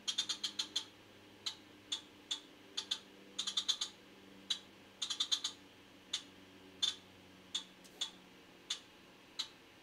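Looped function-21 sound effect from an Atlas N scale New Jersey Transit locomotive's DCC sound decoder: irregular sharp clicks, some single and some in quick runs of five to eight, over a faint low hum.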